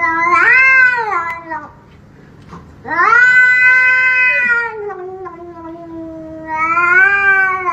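Cat yowling in long, drawn-out meows: two long calls, the second bending down in pitch and then rising again near the end.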